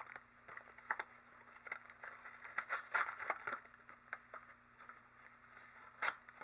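Cardboard snack box being opened by hand: irregular scrapes, crinkles and clicks of the card and the cakes' plastic wrappers, busiest in the middle, with a sharp click near the end.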